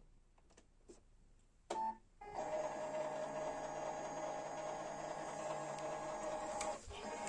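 Brother printer giving a short beep, then its motors starting up and running steadily with a whirring hum, briefly dipping near the end.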